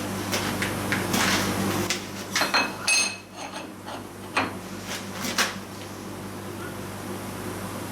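Milling machine motor humming steadily while metal parts clink and knock irregularly, with one ringing metallic clink about three seconds in.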